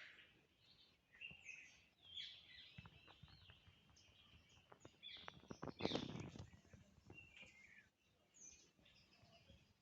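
Small birds chirping and twittering faintly, with many short high calls. There is a brief cluster of soft clicks or knocks about five to six seconds in.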